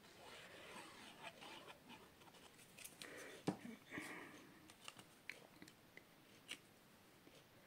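Faint handling of cardstock: a die-cut paper circle rustling as it is picked up and laid onto a card panel, with scattered small clicks and taps. The loudest is a sharp tap about three and a half seconds in.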